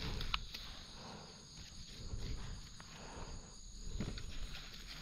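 Insects buzzing steadily at a high pitch in dry woodland. Close-by rustling and a few sharp clicks, the sharpest about a third of a second in, sound over the insects as leaf litter and soil are handled.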